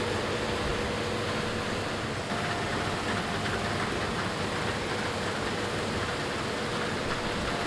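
New Holland CR9.90 combine harvester running steadily as a constant mechanical hum with a faint tone that steps up in pitch about two seconds in.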